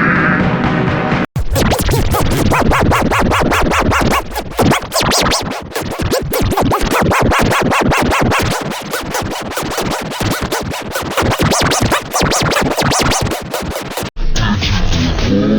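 Fast electronic remix music built from rapid stuttered, chopped sounds with scratch-like effects. It starts abruptly about a second in and cuts off near the end into different music.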